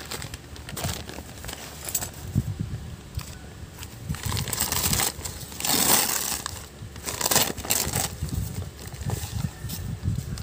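Paper shopping bag and plastic-wrapped items rustling and crinkling as hands dig through the bag and pull things out, in irregular bursts, loudest around the middle.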